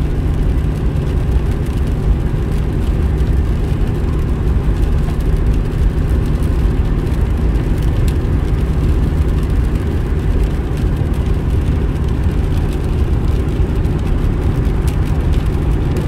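Steady low rumble of a car driving at motorway speed, heard inside the cabin: engine and tyres on wet asphalt.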